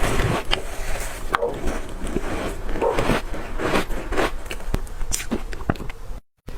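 Crunchy ice chunks dusted with matcha powder being bitten and crunched, one sharp crack after another. The sound cuts out briefly near the end.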